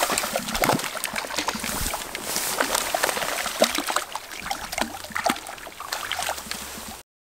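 A hooked trout thrashing and splashing at the surface of a small creek: a run of irregular splashes, loudest at the start, with grass rustling as the angler reaches down to land it.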